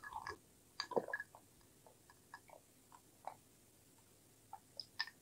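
Close-miked drinking from a cup: a few gulps and swallows, the loudest cluster about a second in, followed by scattered small wet mouth clicks.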